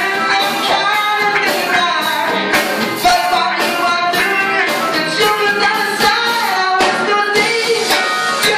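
Live rock band playing a song with a male lead singer, over electric guitar, acoustic guitar, keyboard and drum kit, with steady drum hits.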